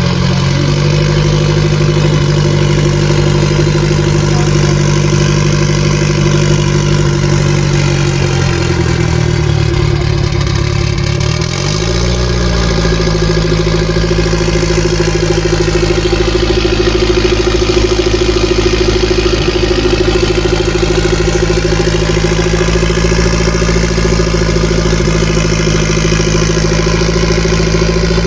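Turbocharged 1999 Honda Civic engine idling steadily, its speed sagging slightly and recovering about ten to twelve seconds in.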